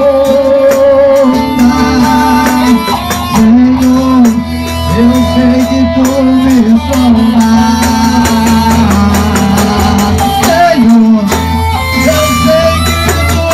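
Small live band playing a Brazilian worship song, with a steady bass line and a gliding melody over it.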